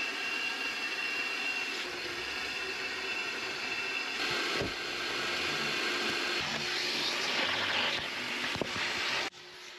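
Shop vacuum running with a steady whine while its nozzle sucks dirt out of the carpet. The suction hiss gets stronger about four seconds in, and the sound cuts off suddenly near the end.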